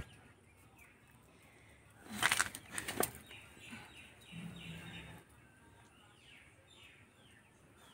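Wet feathers being pulled by hand from a scalded chicken: two short, loud rustling, tearing bursts about two and three seconds in, then softer rustling. Small birds chirp behind it in a run of short falling calls.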